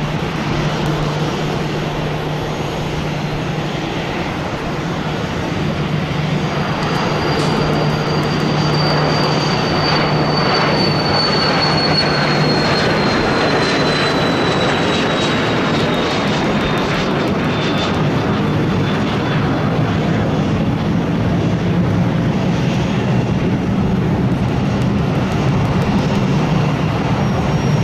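Gulfstream G550 business jet on final approach, its two Rolls-Royce BR710 turbofans at approach power: a steady jet rumble with a low hum and a high whine that slowly falls in pitch, growing gradually louder as the jet nears.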